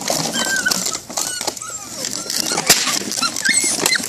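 Seven-week-old Belgian Malinois puppies whining and yipping in short high cries, more of them near the end, with a few sharp clicks and clatters of empty plastic bottles knocked about as they scramble through them.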